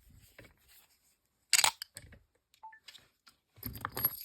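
Metal-on-metal handling noise from a large lever padlock and its picking tools: one sharp clack about one and a half seconds in, a few faint ticks, then a short run of small clicks and rattles near the end.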